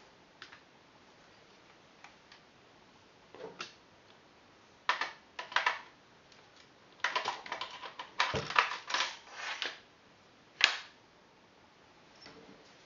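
Clicks, knocks and rattles of a Silverback SRS airsoft sniper rifle's parts being handled and worked on. A dense run of clatter from about seven to ten seconds in, then one sharp click.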